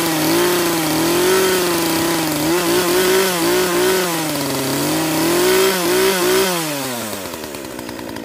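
A Poulan P3314 chainsaw's 33cc two-stroke engine runs unloaded, its speed wavering up and down. About six and a half seconds in, its pitch falls and the engine winds down and dies away.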